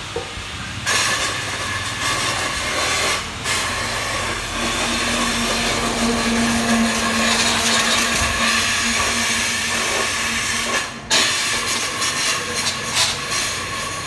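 Compressed air hissing steadily while a tubeless motorcycle tyre is inflated to seat its bead on the rim at a tyre changer. The hiss dips briefly about three seconds in and cuts out for a moment near the end, and a low hum joins it for a few seconds in the middle.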